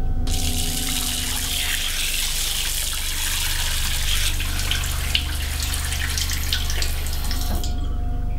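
Water running from a tap into a bathroom washbasin, with splashing as a face is washed in it; the water cuts off sharply near the end.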